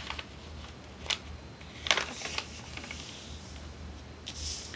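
A sheet of printer paper being folded and creased by hand on a tabletop: a few short rustles and sliding strokes, the loudest about two seconds in, over a faint steady low hum.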